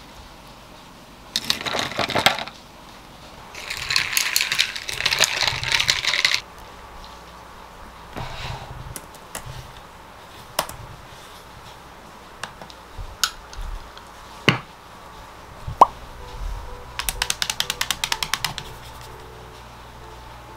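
Ice clinking and rattling in a tall glass as an espresso shot is poured into iced almond milk, in two clattering bursts over the first six seconds. Then a laptop keyboard is typed on, with scattered key clicks and a quick run of keystrokes near the end.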